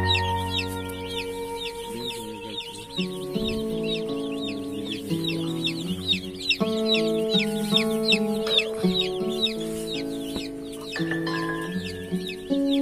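A brood of broiler chicks peeping constantly, a dense chorus of short, high, falling chirps overlapping one another, over background music with held chords.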